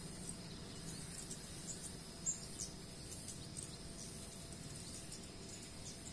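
Outdoor ambience of birds chirping in short high calls, the loudest about two seconds in, over a steady high insect drone and a faint low rumble.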